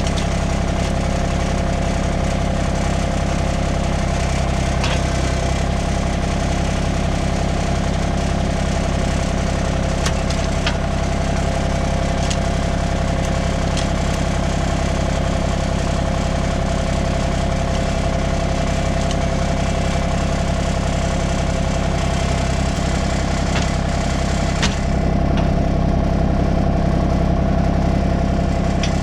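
Tractor engine running steadily, with a few sharp metallic knocks. It gets a little louder near the end.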